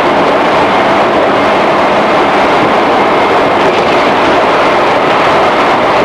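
JR 211 series electric train running at speed, heard from inside the motor car MoHa 210-1001: a steady, loud rumble of wheels on rail and running gear.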